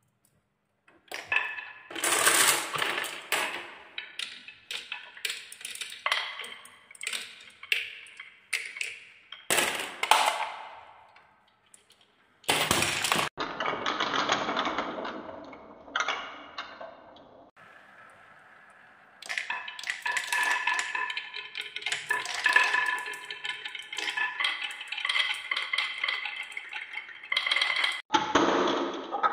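Small hard balls rolling and clattering down wooden marble-run tracks and a wooden spiral, with many quick clicks and knocks, after a toy car rolls down a wooden slope at the start. It comes as a series of short runs that start and stop abruptly.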